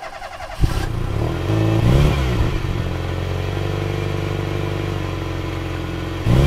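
An engine starting about half a second in, revved once around two seconds, then idling steadily and revved again near the end.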